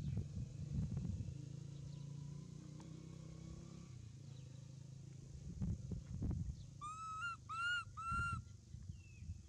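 Baby macaque giving three short high coo calls in quick succession near the end, each rising then falling. Low rustling and knocks come earlier.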